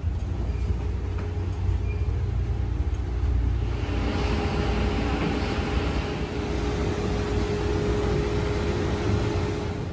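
Steady low mechanical rumble with one constant hum, the machinery noise of a jet bridge beside a parked airliner at the gate. A hiss of moving air builds from about four seconds in as the aircraft door is reached.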